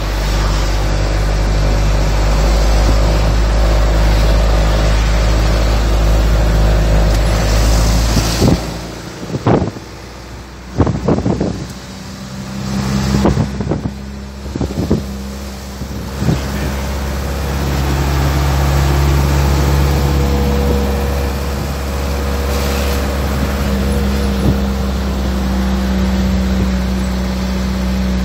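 Steady low rumble of a car on the move, heard from inside the cabin. A few sharp knocks fall in a quieter stretch about nine to twelve seconds in.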